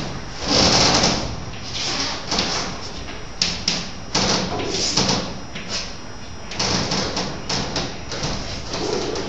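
Chalk writing on a chalkboard: uneven scratchy strokes with short pauses between them.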